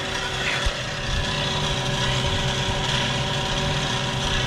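Electric spinner motor of a Fimco ATV spreader running at full speed, a steady hum with several steady tones, getting a little louder about a second in as it comes up to speed.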